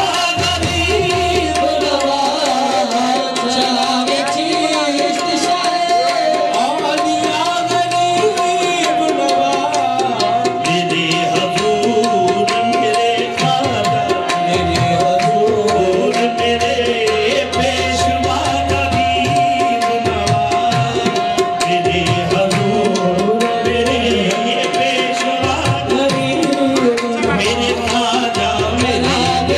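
Qawwali music: tabla playing a steady rhythm under harmonium, with one long note held as a drone through most of the passage.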